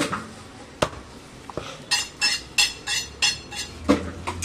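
Heavy meat cleaver chopping goat mutton on a wooden log block: sharp chops about once a second. In the middle comes a quick run of about six short, high rasping strokes.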